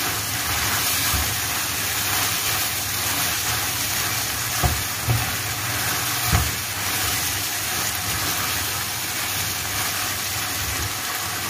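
Bitter melon sizzling in its sauce in a non-stick wok as it is stirred with a spatula, a steady frying hiss. A few short knocks of the spatula against the pan come midway.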